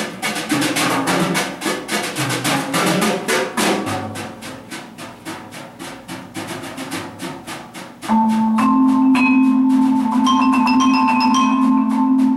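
Percussion ensemble playing on marimbas and other mallet keyboard instruments: fast, even mallet strokes that grow quieter midway. About eight seconds in, loud held tones come in suddenly and sustain over the strokes.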